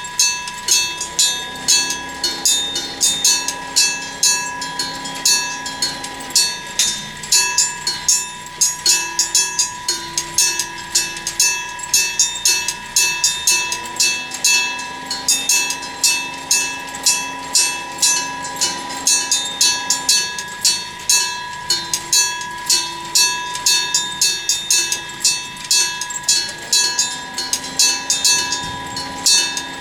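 Electric level-crossing bell ringing: a motor-driven striker hitting the bell again and again at a quick, even pace, each strike leaving a bright ring. A lower droning tone rises and holds for several seconds beneath it three times.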